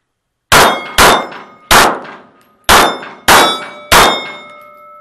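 Six 9mm shots from a Canik TP9SFX pistol, irregularly spaced over about three and a half seconds, each followed by steel target plates ringing from the hits, the ringing fading after the last shot.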